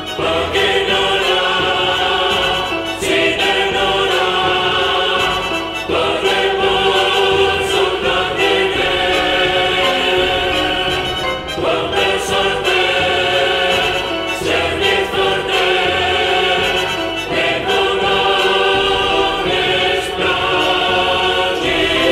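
Opera chorus singing a slow choral theme in long sustained chords, the harmony changing about every three seconds.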